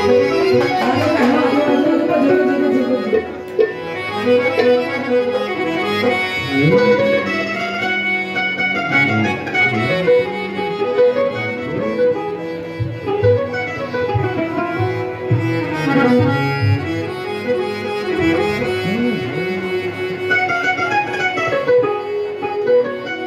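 Instrumental interlude of a live Punjabi song: the band's melody continues without singing.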